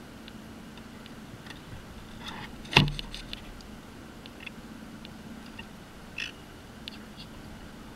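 Fishing rod and reel handled aboard a kayak: faint scattered clicks and ticks over a steady low background, with one sharp knock about three seconds in and a smaller one about six seconds in.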